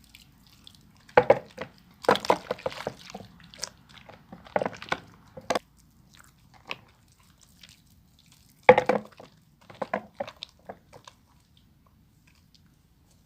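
Wet bar soap being lathered by hand, squelching and crackling in irregular bursts with short pauses between them.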